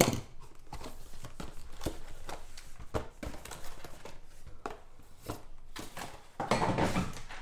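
Small cardboard trading-card pack boxes being lifted out of a larger box and set down on a table: a string of light taps and knocks with cardboard rubbing and rustling.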